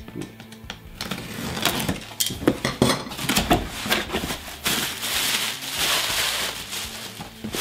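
A utility knife slits packing tape on a cardboard box, and the flaps are pulled open with a run of sharp clicks and knocks. About four seconds in, bubble wrap crackles steadily as it is pulled out of the box.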